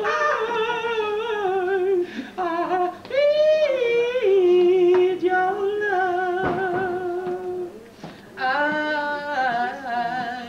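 A man singing a slow ballad unaccompanied, holding long notes with a wide vibrato. About three seconds in he climbs to a high held note, and he breaks off briefly near the eight-second mark.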